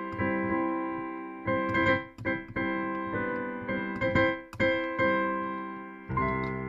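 Piano played by hand: unhurried single notes and chords, each struck and left to ring and fade. Near the end a full chord with a deep bass note is struck and held ringing.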